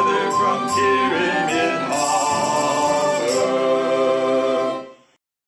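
Sea-shanty song ending: voices with instrumental backing sing the closing line, "And stay farther from Pyramid Harbor!", then hold the final chord, which dies away about five seconds in.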